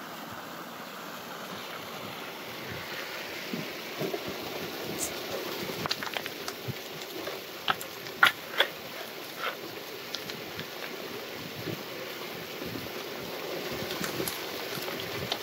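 Water rushing steadily from the spray bar of an Utmost Adventurer highbanker through its metal hopper and classifier screen. Several sharp knocks of gravel and stones clatter onto the metal, most of them around the middle.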